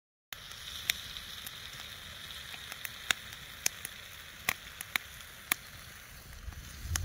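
Wood campfire crackling: irregular sharp pops and snaps over a steady hiss. Low wind rumble on the microphone builds near the end.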